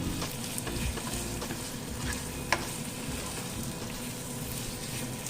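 Spiced lamb slices frying in oil in a pan, a steady sizzle with small crackles, stirred now and then. A single sharp click about halfway through stands out as the loudest sound.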